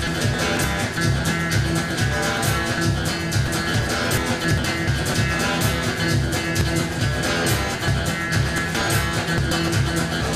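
Background music: a song with a steady beat and no singing.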